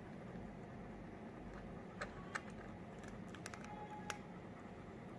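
A cat crunching dry kibble from a plastic bowl: faint, scattered crisp clicks, with a few sharper ones about two seconds in and again around three to four seconds in, over a low steady background hiss.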